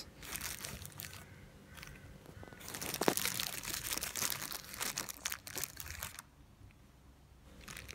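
Clear plastic zip bag of small hardware crinkling as it is handled, in irregular crackles that are loudest in the middle few seconds and die away near the end.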